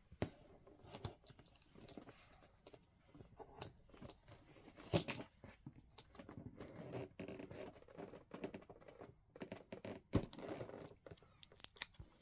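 Packing tape being peeled off a cardboard box: irregular tearing and crackling, with a few sharp clicks.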